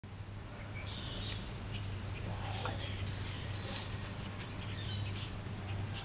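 Wild songbirds chirping in short, scattered high notes over a steady low rumble.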